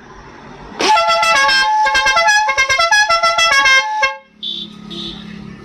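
Five-trumpet electric air horn driven by its 12-volt motor, sounding its trumpets one after another in a rapid, changing sequence of notes for about three seconds, starting about a second in and then cutting off. A low hum follows.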